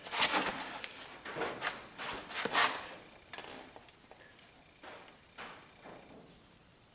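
Short metal scraping and creaking sounds as a seized piston is forced in the cylinder of a small-block Chevy 350, a cluster of louder ones in the first three seconds, then fainter, more spaced ones.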